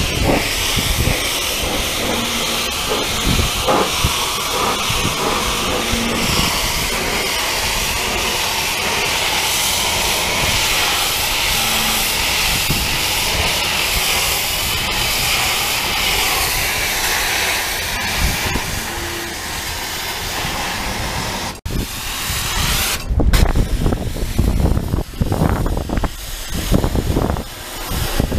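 High-pressure washer jet spraying water against a sailboat's hull to wash off grime, a steady hiss. It cuts out briefly about three-quarters of the way through, then returns choppier and more uneven.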